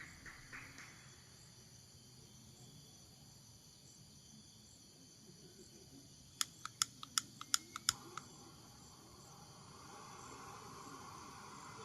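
Steady high insect chirring, with a quick run of about eight sharp clicks a little past the middle, followed by a soft hiss that slowly builds.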